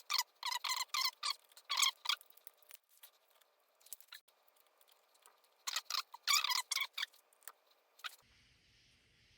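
Ratchet clicking in two runs of sharp clicks, about eight in the first two seconds and another handful around six seconds in.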